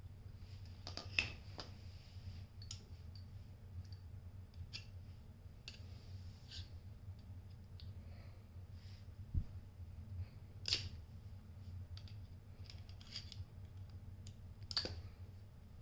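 Scattered small metallic clicks and scrapes of a screwdriver working at the head of a hand ratchet, twisting and prying to get it open, with a few sharper clicks about a second in, around two-thirds through and near the end.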